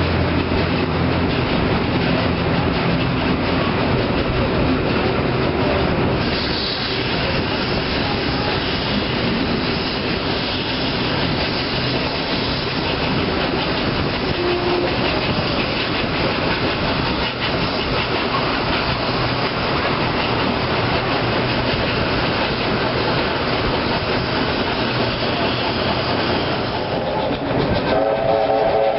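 Three steam locomotives, NSW 32, 35 and 36 class 4-6-0s, working a train together: a steady din of exhaust beats, steam hiss and wheels clicking over rail joints. A steam whistle sounds near the end.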